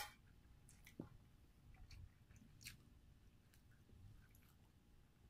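Near silence with faint chewing and a few soft mouth clicks from people eating rice by hand; the clearest clicks come right at the start and about a second in.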